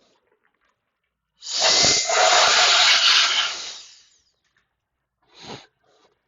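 A loud hiss, about three seconds long, starting about a second and a half in and tailing off.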